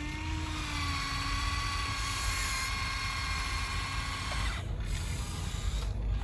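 Small electric motors of a radio-controlled model truck or excavator whining at a steady pitch, over a low rumble; the whine cuts off about four and a half seconds in.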